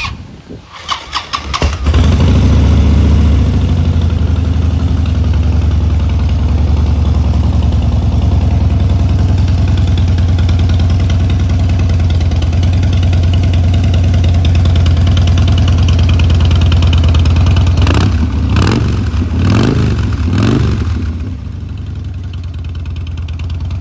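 Harley-Davidson Street Bob's V-twin cranked on the starter for about a second and a half, catching about two seconds in and settling into a loud, steady idle through aftermarket Vance & Hines exhaust pipes. Near the end it is revved in a few quick blips, then drops back to a slightly quieter idle.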